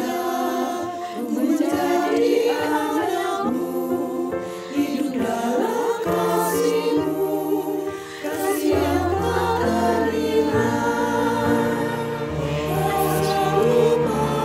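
Senior church choir singing a hymn in harmony over instrumental accompaniment, voices recorded separately and mixed together. Lower, steady notes come in about nine seconds in.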